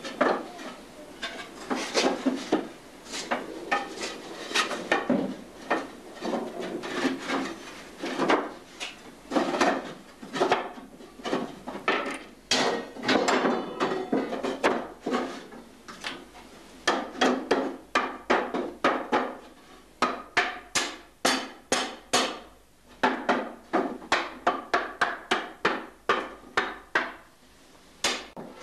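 Cooper hammering on a wooden barrel: a long, irregular series of sharp knocks, some with a short ring, coming in quick runs of several blows a second in places.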